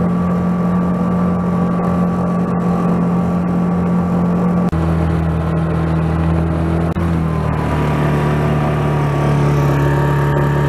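A 5 hp Mercury outboard motor running steadily at full throttle, pushing a lightened jon boat at top speed. Its pitch drops slightly about halfway through and again a little later.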